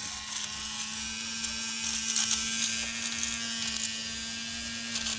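A small vacuum cleaner's electric motor running with a steady buzz, with scattered light clicks.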